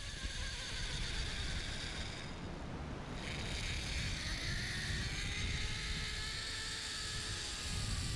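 Zip-line trolley pulley rolling along the steel cable: a steady hiss with a faint whine that slowly changes pitch, over low wind rumble on the microphone.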